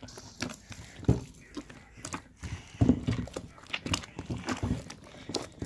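Freshly mixed glue-and-Tide slime being stirred and worked, giving irregular wet squelches and small sticky pops.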